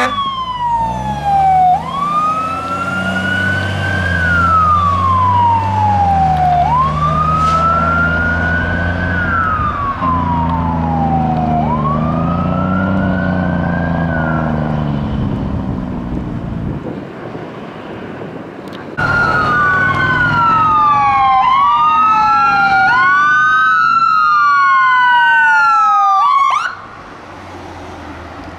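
Fire engine's siren wailing slowly up and down over its diesel engine as the truck passes and pulls away, fading out. After a short lull, an ambulance's siren wails faster, with two sweeps overlapping, and cuts off suddenly near the end.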